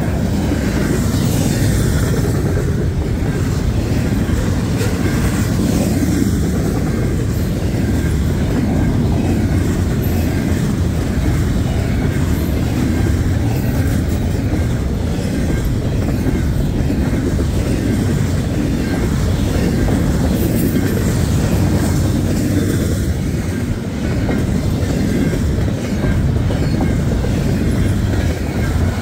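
Double-stack intermodal container train passing at speed: a steady rumble of steel wheels on the rails, with the clickety-clack of the well cars' wheels.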